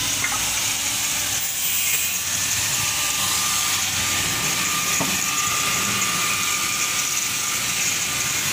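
Steady machine noise: a low running hum under a loud, even hiss, with a faint steady tone for a few seconds in the middle.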